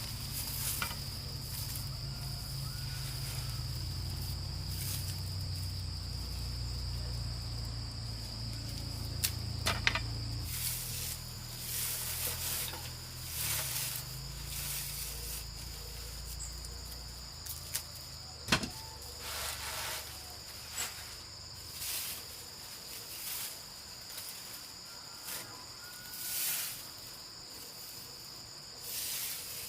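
Crickets chirring steadily, with repeated short rustling or scraping noises and a few sharp knocks. A low rumble underneath fades out about halfway through.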